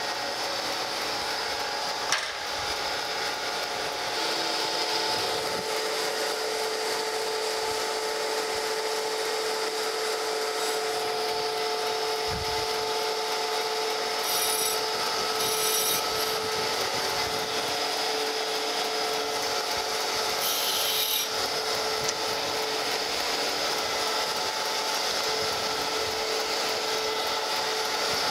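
Surface grinder running, its spindle and abrasive wheel spinning with a steady whine of several held tones over a hiss. Brief higher hissing patches come about halfway and again about three-quarters in.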